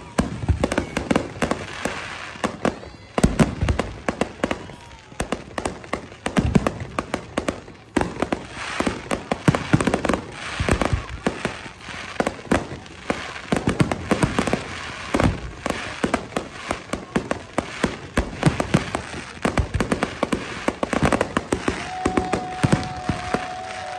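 Fireworks display: a rapid, unbroken run of bangs and crackling bursts, many close together, with the heaviest volleys in the middle.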